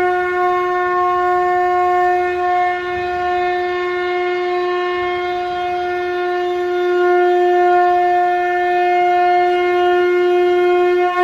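Conch shell (shankha) blown in one long held note at a steady pitch, swelling a little louder partway through.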